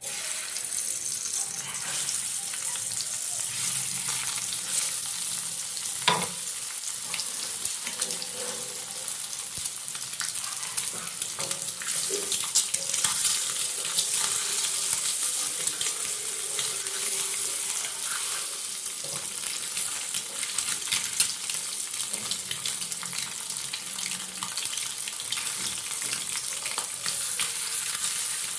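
Turmeric-coated hard-boiled eggs frying in hot oil in a kadai: steady sizzling with fine crackling spits throughout, and one sharp knock about six seconds in.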